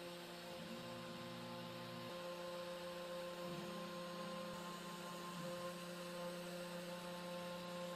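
FoxAlien WM3020 desktop CNC milling out a PCB profile with a 2 mm corn-cob end mill: the spindle gives a steady whine of several tones. Lower stepper-motor tones shift in pitch a few times as the cut changes direction.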